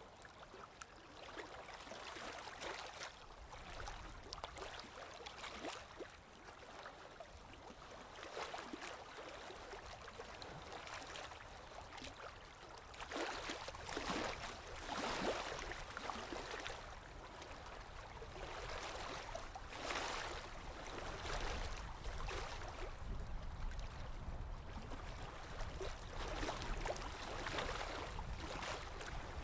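Water flowing and splashing, with a gurgling wash that comes in uneven surges.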